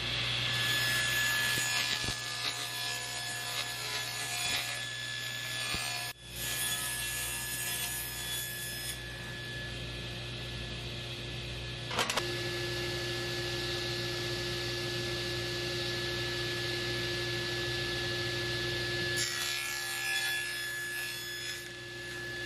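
Table saw running with a steady motor whine, its blade cutting quarter-inch plywood door panels to size. The cutting noise is heavier over the first several seconds and again shortly before the end.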